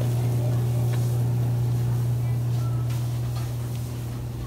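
Steady low machine hum, easing off a little near the end, with faint voices in the background.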